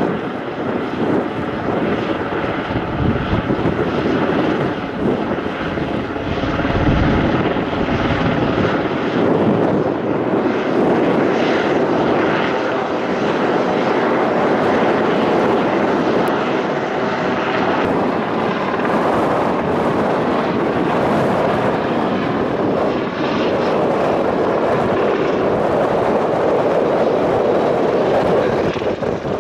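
A Westland Sea King helicopter in flight, with its main rotor and twin Rolls-Royce Gnome turboshaft engines making a steady, loud noise as it passes.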